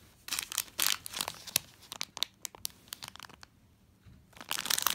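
Clear plastic bag holding a plastic model-kit parts runner crinkling as it is handled, in crackly bursts, with a quiet spell about three seconds in before crinkling starts again near the end.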